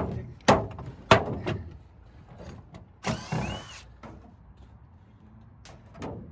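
Hammer blows on sheet-metal ductwork: four sharp ringing strikes in the first second and a half, then a short screeching scrape of metal about three seconds in, and one more knock near the end.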